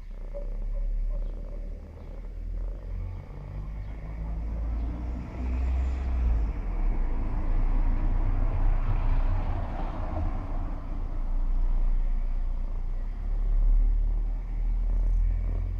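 A domestic cat purring, a steady low rumble, with a soft rubbing hiss over a few seconds in the middle.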